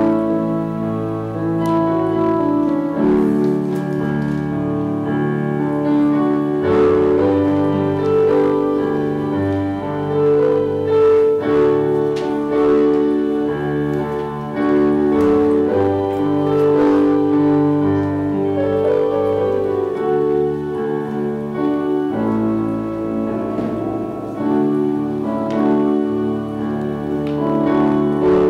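Instrumental keyboard music played slowly, held chords with a melody over them, in a piano-and-organ sound.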